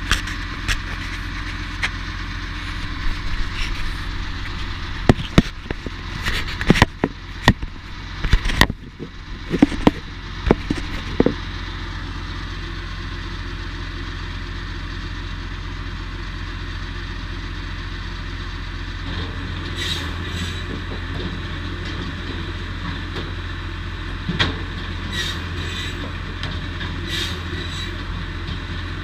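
Posch Smartcut 700 firewood saw running with a steady hum. Loud, sharp knocks and clunks come in a cluster from about 5 to 11 seconds in, and lighter knocks follow near the end.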